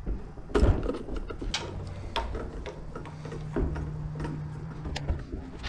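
Irregular clicks and knocks of a throttle-by-wire wiring harness and its plastic connector being pulled and worked through a chrome handlebar tube, with a sharper knock about half a second in.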